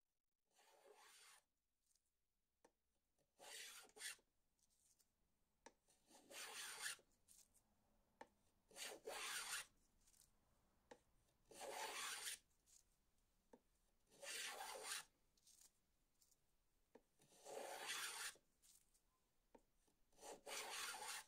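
Faint, even rasping strokes of a hand tool being pushed through material, about eight of them, each lasting roughly a second and coming about every three seconds.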